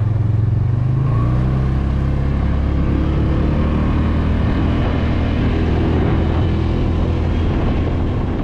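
Side-by-side UTV's engine running as the machine drives along, heard from inside its open cab. The engine note shifts about a second in and then climbs slowly.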